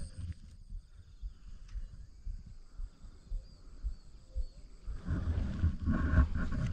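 Wind buffeting the camera microphone in irregular low gusts, dying down for a few seconds and then rising strongly again about five seconds in. In the quieter stretch a few faint high chirps can be heard.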